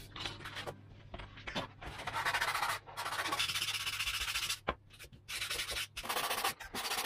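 Sanding block rubbed along the edge of a Depron foam wing, in long scratchy strokes with short pauses between them. A few light knocks come first, from the block and tools being handled.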